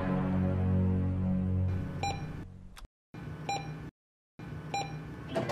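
Three short ATM keypad beeps, about a second and a half apart. Before them, a low sustained musical tone fades out.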